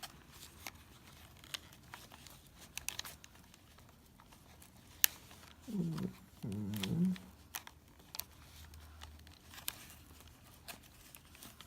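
Scattered small clicks and taps of plastic headset parts being handled and pressed into place, with one sharper click about five seconds in. A short wordless murmur from a man's voice follows about a second later.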